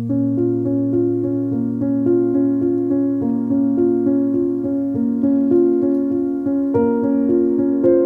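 Background piano music: a steady, repeating pattern of notes over a held low note.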